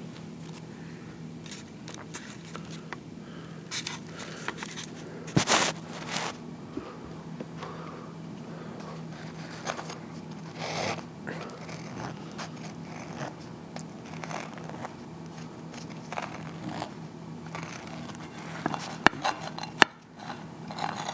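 Knife cutting through a flour-tortilla chicken wrap on a plate: irregular scrapes and crunches, with a few sharper knocks, the loudest about five seconds in, about eleven seconds in and near the end. A low steady hum runs underneath.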